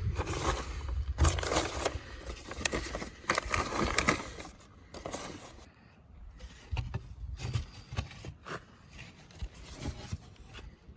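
Irregular scraping and rustling strokes, dense and louder for the first five seconds, then quieter with scattered light clicks and knocks.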